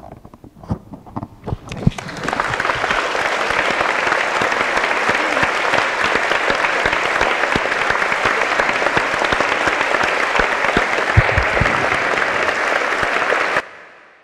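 Audience applauding: a few scattered claps at first, swelling into full, steady applause about two seconds in, then cut off abruptly near the end.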